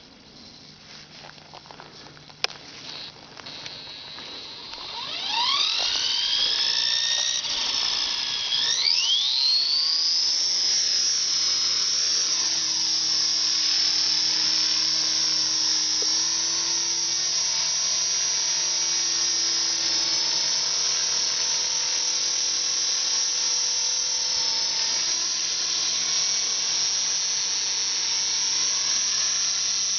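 Align T-Rex 450 electric RC helicopter spooling up. The motor and rotor whine starts about five seconds in and rises in pitch over several seconds, dips once and climbs again, then holds a steady high whine as the helicopter hovers low.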